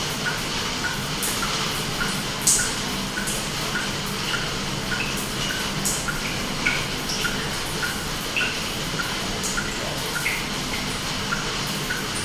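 Water drops plinking at uneven pitches over a steady hiss, with a soft regular tick about twice a second and a few sharper drip clicks.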